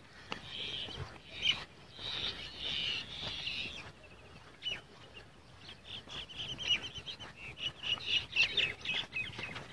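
Small birds chirping and chattering with quick, high notes in two bouts, a first one over the opening few seconds and a busier one from about six seconds in.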